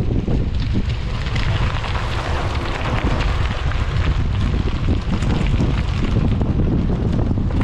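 Wind buffeting a helmet-mounted action camera's microphone while riding a bicycle, with a fine crackle from the tyres rolling over a gravel lane.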